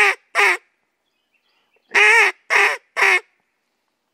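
Duck call blown in a basic three-note cadence. In the first half-second, the last two notes of one series; about two seconds in, three quacking notes, the first longest and each one shorter, cut off cleanly between notes.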